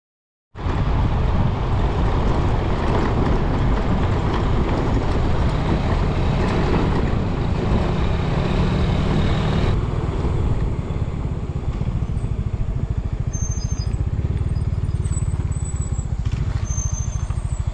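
Motorbike riding on a gravel road: engine running, tyre rumble and wind buffeting the microphone, loud and steady. About ten seconds in the hiss drops and the engine pulses come through more clearly.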